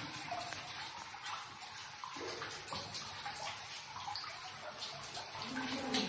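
Water dripping and trickling into a shallow cave pool: a steady watery splashing made of many small drips.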